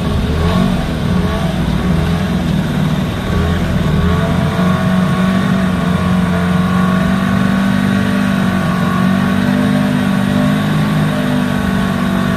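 Motorboat engine running steadily.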